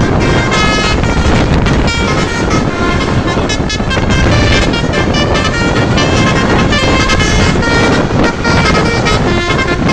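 Bus 'telolet' musical air horn (Basuri horn) playing a quick tune of stepped, changing notes, over the steady rumble of the bus and road.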